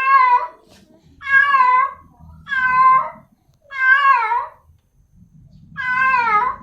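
Female cat in heat calling for a male: five loud, drawn-out meows in a row, about one a second, each bending in pitch.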